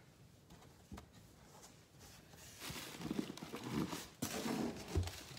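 Cardboard box flaps being pulled open and handled: quiet at first with one click, then rustling and scraping of cardboard from about halfway, with a dull thump near the end.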